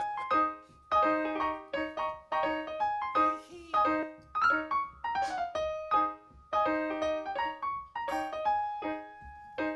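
Solo piano playing a song's intro: notes and chords struck in a steady rhythm, each fading quickly.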